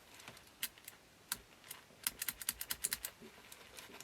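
Light clicks and taps of small plastic parts of a cassette deck being handled: a few scattered clicks at first, then a quick run of clicks, several a second, in the second half.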